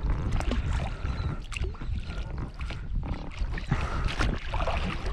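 Oar strokes dipping and splashing in the water as a small boat is rowed, with wind rumbling on the microphone.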